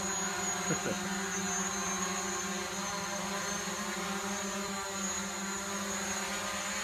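Small quadcopter drone in flight, its propellers giving a steady buzz at a constant pitch.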